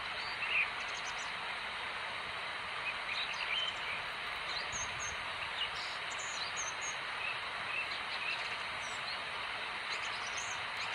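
Outdoor ambience: a steady hiss of background noise with frequent short bird chirps scattered through it.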